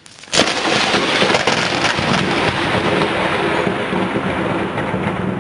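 A dramatic sound effect for a blinding magical flash: a sudden sharp crash about half a second in, followed by a dense, steady rushing noise that slowly fades.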